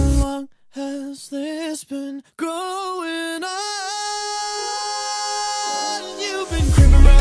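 Pop song in a breakdown: the beat and bass drop out and a lone singing voice carries on with a few short wavering notes, then one long held note over a thin backing. The full band with heavy bass comes back in near the end.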